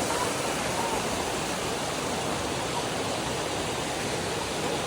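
Running water, a steady, unbroken rush like a stream or small waterfall.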